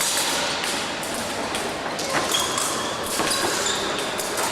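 Épée fencing bout in a large hall: footwork thuds on the piste and a few short metallic rings from blade contact, over general hall noise.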